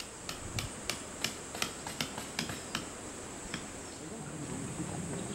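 Insects droning steadily at a high pitch, with a quick run of about ten sharp clicks, roughly three a second, in the first three seconds and one more a little later.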